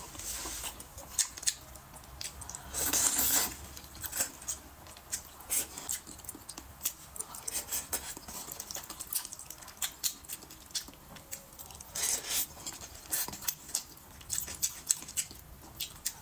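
Close-miked chewing of soft, saucy rice rolls: a steady run of wet mouth smacks and small clicks, with a louder, noisier mouth sound about three seconds in.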